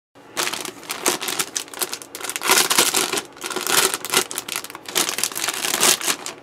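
Clear plastic kit bags crinkling and rustling as model-kit sprues are handled and pulled out of them, starting suddenly just after the beginning and going on in irregular crackly bursts.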